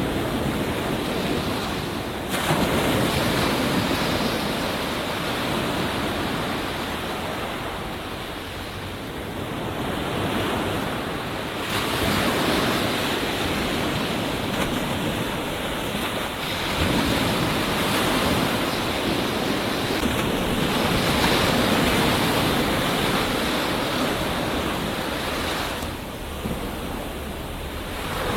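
Ocean surf breaking on a beach: a continuous rush of white water that swells and ebbs, with new waves crashing in suddenly a few times, about every five to ten seconds.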